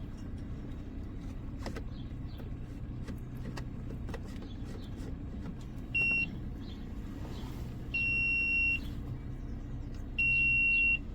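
Electronic beeps from a 12V car electric kettle: one short beep about six seconds in, then two longer beeps of nearly a second each, all on the same high pitch. Under them runs a steady low hum, with a few light clicks early on.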